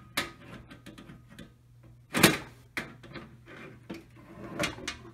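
Clicks, knocks and scrapes of a cover on fire alarm equipment being fitted back on one-handed, with one sharp loud knock about two seconds in.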